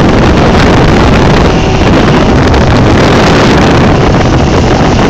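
Small speedboat's engine running steadily under way, loud, with wind buffeting the microphone.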